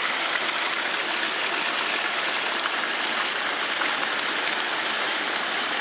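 Steady rush of fast-flowing rainwater, with water gushing out of a just-unblocked plastic pipe.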